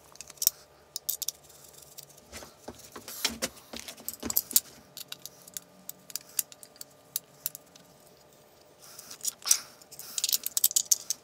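Allen key and small metal screws clicking and rattling against a 3D-printed plastic CNC plate as the parts are screwed together. The clicks come irregularly, with a busier clatter about nine seconds in.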